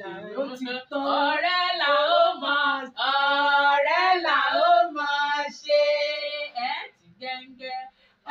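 Two women singing together without accompaniment, in loud phrases with long held notes, a cheerful celebratory song; the singing drops to short, quieter snatches near the end.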